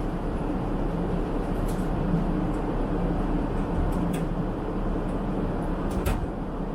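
Steady in-flight cabin noise of a Boeing 777-300ER: a constant rushing drone of airflow and engines with a low hum. Two faint clicks come about four and six seconds in.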